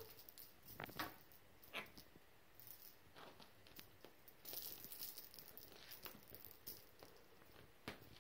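Quiet room with scattered soft taps and rustles as cats leap and land on a wooden floor. The sharpest taps come about a second in, near two seconds and near the end, with a soft rustling in the middle.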